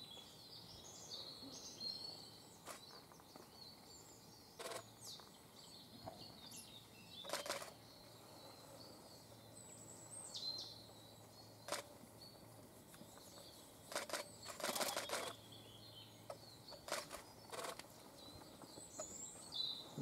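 Small woodland birds chirping and twittering in the background, with short clicks or rustles breaking in every few seconds.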